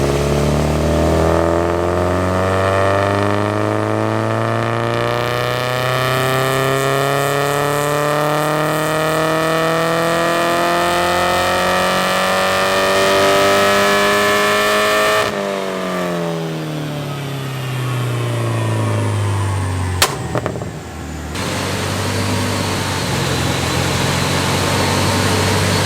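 Porsche 944's 2.5-litre eight-valve four-cylinder engine making a full-throttle dyno pull: the revs climb steadily for about thirteen seconds, then the throttle shuts and the engine winds down. A single sharp crack comes about five seconds after the throttle shuts, and the engine then settles to idle.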